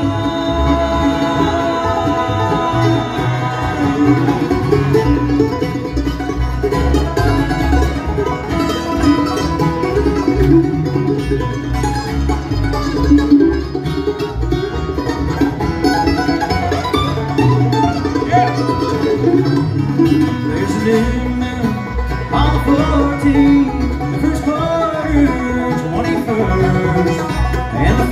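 Bluegrass band playing live, with banjo, acoustic guitar and upright bass, in an instrumental break between sung verses.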